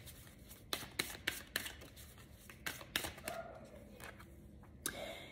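A deck of oracle cards shuffled by hand: a quiet, irregular run of short card flicks and taps.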